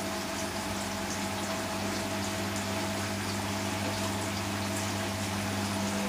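Hoover Nextra front-loading washing machine in its wash tumble: water and suds sloshing around the load of net curtains as the drum turns, over a steady motor hum. A single sharp click right at the start.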